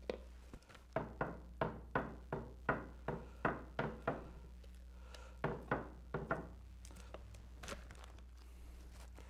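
A chip brush dabbing epoxy resin into fiberglass cloth on a wooden paddle blade to wet it out. It makes a run of about ten sharp taps, roughly three a second, then a short pause and four more taps.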